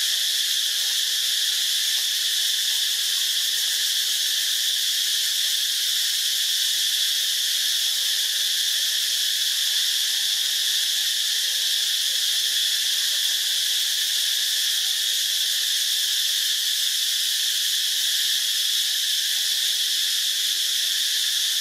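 Steady, high-pitched drone of an insect chorus, unbroken throughout.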